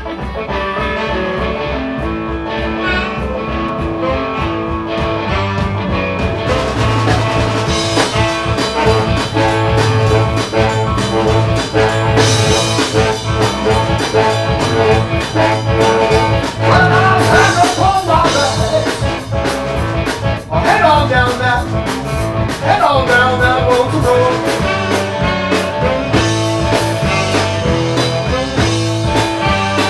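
Live blues-rock band playing with a steady beat: electric guitars, electric bass, drums and saxophone. About halfway through, a lead line bends and slides between notes.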